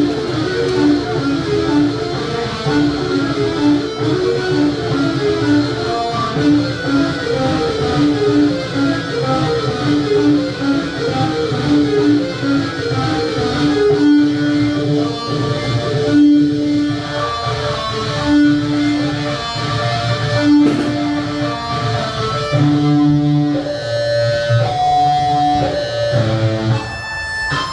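Instrumental music: a guitar playing a run of quick picked notes over a low bass part, moving to longer held notes about halfway through.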